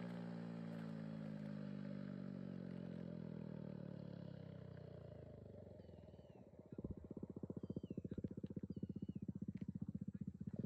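Motorcycle engine with an aftermarket Akrapovic exhaust, its note falling in pitch and fading as the bike rides away down the runway. About seven seconds in, a low, even pulsing engine beat comes in and grows slightly louder. A few short bird chirps sound near the end.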